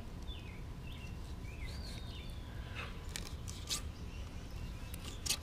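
Quiet outdoor background: a steady low rumble with faint bird chirps, and a few light clicks in the second half.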